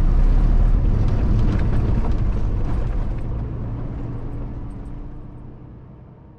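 A fuel tanker truck's engine and road noise heard from inside the cab as it rolls slowly, a steady low rumble. The sound fades out gradually over the last few seconds.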